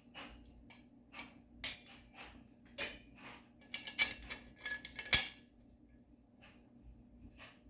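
Metal rack parts and small tools clinking and clattering as they are handled: a string of sharp clicks with a brief ringing note in the middle, loudest about three and five seconds in.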